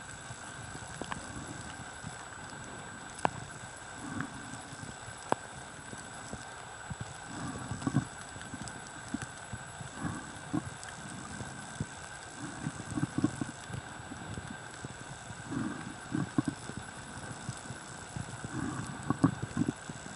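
Water sloshing around a camera held just under the sea surface: irregular low muffled thumps every second or two, with a few sharp clicks and a faint steady whine.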